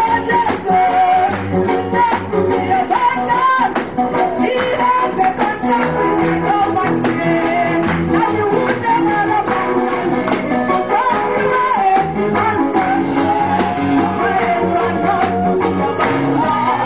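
A song: voices singing over guitar, bass and a steady drum beat.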